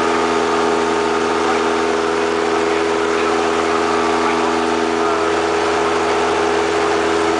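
Small single-engine propeller airplane's engine and propeller running steadily in flight, heard from inside the cockpit: an even, unchanging drone over constant rushing noise.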